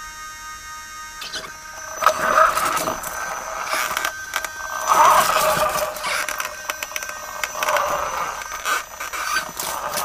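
Small wheeled inspection rover driving over gravel: its tyres crunch and scrape on the stones and its drive motor whines, coming in uneven surges from about two seconds in.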